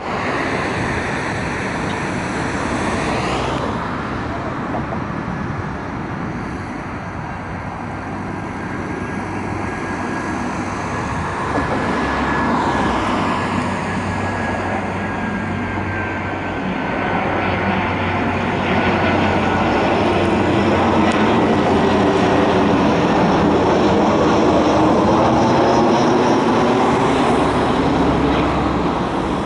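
Airbus A319 jet airliner on final approach, its engines at low approach power: a steady jet rush with a thin whine through the middle, growing louder over the second half as the aircraft draws nearer.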